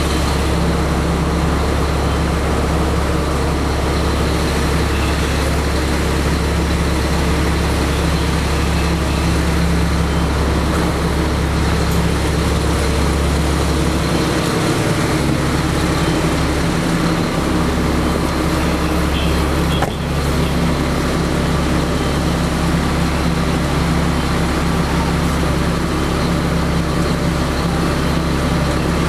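Vehicle engine running steadily, a low hum with traffic noise.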